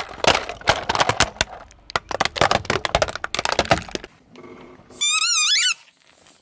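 Objects crackling and snapping as a car tyre crushes them, a dense run of sharp cracks for about four seconds. About five seconds in comes a loud, high, wavering squeal lasting under a second.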